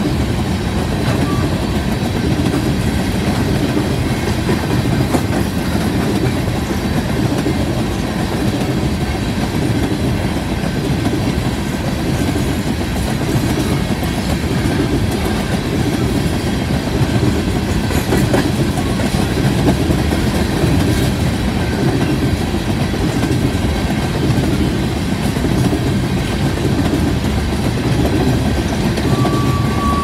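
Empty coal hopper cars of a freight train rolling past, a steady rumble of steel wheels on the rails.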